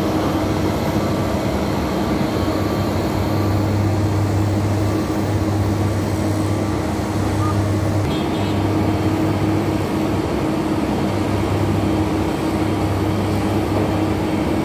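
A motor engine running steadily with a constant low hum and road or mechanical noise over it.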